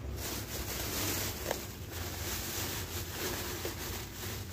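Clear plastic bags of dried foodstuffs rustling and crinkling as they are handled and one is lifted, with a short sharp knock about one and a half seconds in.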